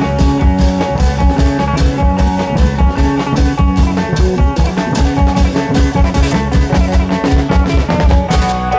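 Amplified klong yao band music: long drums and a drum kit keeping a fast, steady beat under a plucked-string melody.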